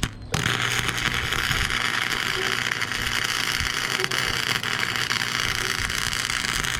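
Flux-core wire-feed welder arc crackling steadily as a weld bead is laid on the tailgate's steel. It starts about a third of a second in, with a faint low hum underneath.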